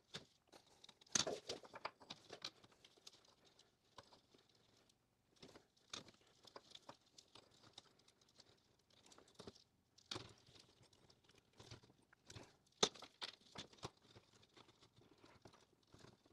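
Faint, scattered clicks, taps and scrapes of a metal window-glass channel being flexed and handled by hand on a wooden workbench, with a few sharper ticks.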